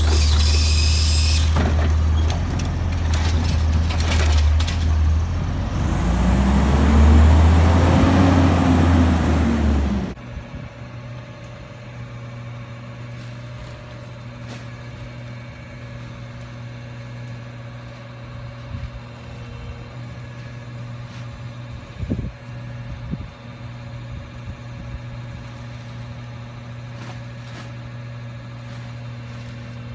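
Garbage truck's diesel engine running hard as its hydraulic side arm lifts and dumps a cart, with a burst of air hiss at the start and the engine revving up and back down. After about ten seconds the sound cuts to a quieter garbage truck idling steadily, with a few short knocks.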